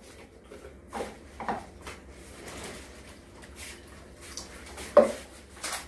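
Scattered small handling noises at a meal table: food wrappers rustling, cups and a drink carton being picked up and set down. A single sharper knock about five seconds in is the loudest sound.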